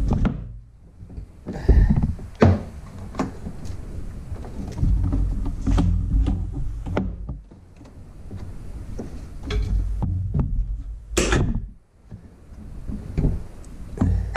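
Knocks, clunks and scraping as a Sea-Doo 787 engine hanging on a rope is shifted by hand inside the fibreglass hull, over a low rumble. The sharpest knocks come about two seconds in, near six seconds and about eleven seconds in.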